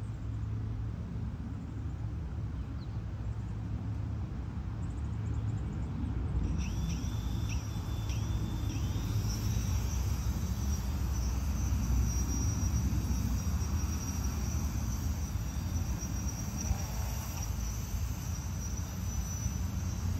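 Insects trilling steadily in summer foliage. The high buzzing sets in about a third of the way through, over a steady low rumble that runs throughout.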